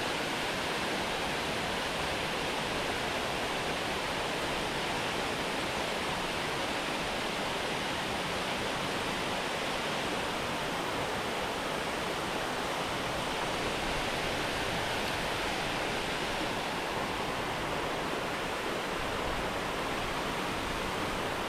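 Steady rushing of flowing river water, an even unbroken wash with no distinct events.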